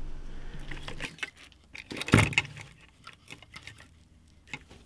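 Folding utility knives being handled and set down on a work table strewn with phone parts: a few light clicks and clatters, the loudest about two seconds in.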